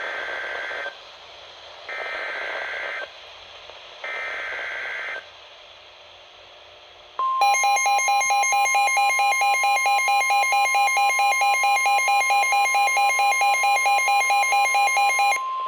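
Emergency Alert System SAME header sent three times as short warbling data bursts, followed by the NOAA Weather Radio 1050 Hz warning alarm tone, a steady high tone with a rapidly pulsing alarm beep over it, signalling the start of a new severe thunderstorm warning.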